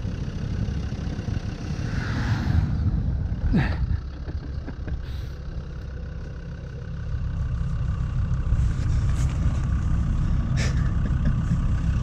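Land Rover Defender 110 Td5's five-cylinder turbodiesel engine running under load as the vehicle works through deep snow, with the wheels slipping for grip. The engine gets louder about seven seconds in, and there are a couple of brief sharp knocks.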